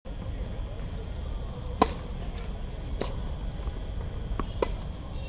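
Tennis rally on a hard court: four sharp pops of racket strings hitting the ball and the ball bouncing, the loudest about two seconds in, over a steady high-pitched whine.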